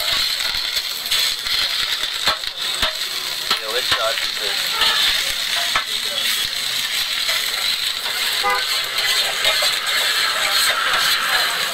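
Busy street-stall ambience: a steady hiss with scattered clicks and clatter, and voices in the background.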